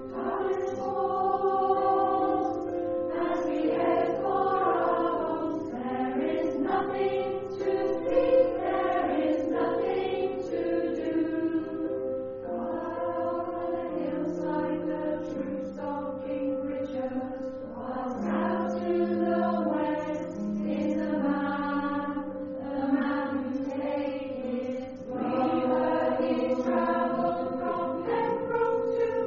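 Choir singing, over a steady held note.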